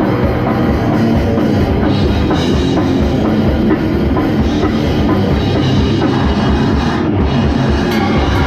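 Goregrind band playing live: loud, dense heavy-metal music driven by a drum kit, going without a break.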